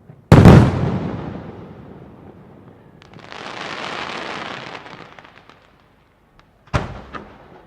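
Large aerial firework shell bursting with a loud boom that rolls away over about two seconds, followed a few seconds in by a hissing crackle of many small pops. Near the end another sharp bang goes off, with a smaller one just after it.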